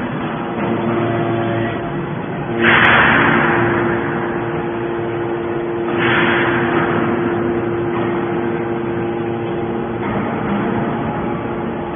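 Hydraulic scrap metal baler running, with a steady machine hum and two loud rushing bursts about three seconds apart, each fading away over a second or so.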